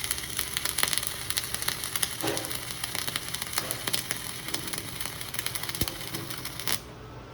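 Flux-core wire-feed welding arc crackling and sizzling steadily, with sharp pops, during a vertical-up filler pass on a T-joint; the arc cuts off suddenly near the end.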